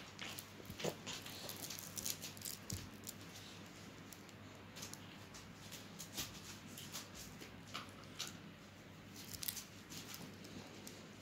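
Faint, scattered small clicks and crinkles of a henna cone and paper being handled, over a low steady hum.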